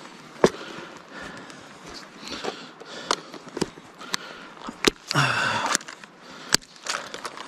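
Kayak being paddled on a river: water swishing and splashing from the paddle strokes, with scattered sharp knocks and clicks. There is one longer rush of splashing about five seconds in.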